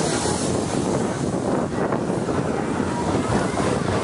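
Mine-train roller coaster cars of Big Thunder Mountain Railroad rolling slowly along the track, a steady noise without distinct clacks.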